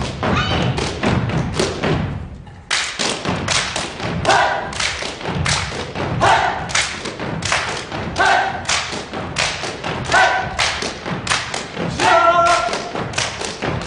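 A gumboot dance troupe stamping and slapping their rubber boots in unison, a fast, even run of sharp thuds with a brief break about two seconds in. Short group shouts come roughly every two seconds over the stepping.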